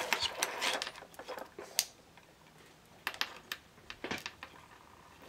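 Light, irregular clicks and rattles of the small plastic and metal parts of a dismantled RCD being handled and turned over in the fingers: a cluster near the start, then a few isolated clicks.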